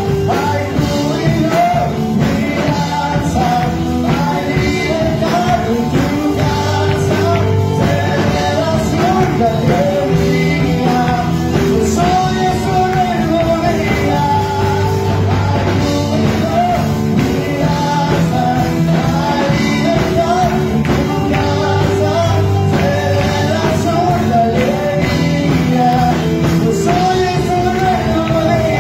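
Live worship band playing an upbeat song, with women's voices singing the melody over a drum kit, keyboard and guitar.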